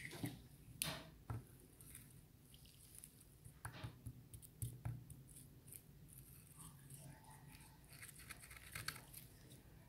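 Faint scratching and scraping with scattered sharp clicks as a pointed metal tool is twisted into the eye of a fibre-covered coconut to pierce it.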